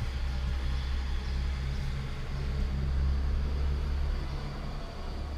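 Steady engine drone and road noise of a moving vehicle heard from inside the cab: an even low hum with a broad rush over it.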